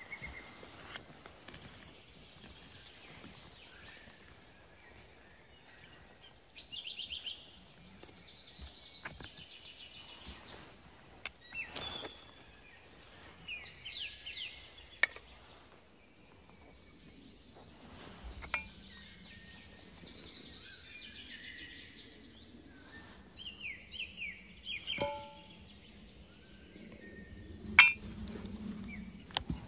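Scattered sharp metallic clinks of aluminium aircraft wreckage fragments being dug out and handled, the sharpest near the end. Small birds chirp in short high bursts several times in between.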